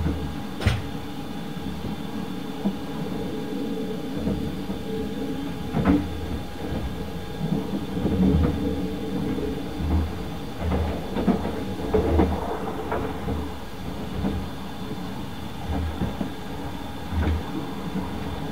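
Running noise heard inside a 24-series sleeper passenger car at speed: a steady rumble and hum, with a few sharp knocks and repeated low thumps from the wheels over the track.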